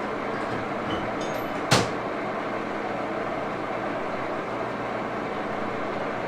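1941 Axelson gear-head engine lathe running steadily, with a sharp metallic clank a little under two seconds in, after a few faint ringing ticks.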